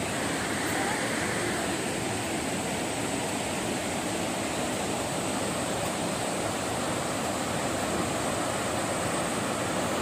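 Steady rush of the Tirathgarh waterfall running in full monsoon flow, a constant even wash of water noise.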